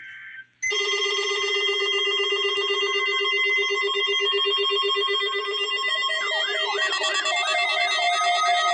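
Weather radio alert alarms going off for the NOAA Required Weekly Test: a loud, steady electronic buzz starts just under a second in, and about six seconds in a second, warbling alarm tone joins it.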